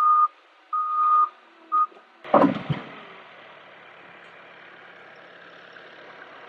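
Skid steer's reversing alarm beeping on one steady high tone, three beeps with the last one cut short. About two seconds in there is a loud thump, followed by a steady low hiss.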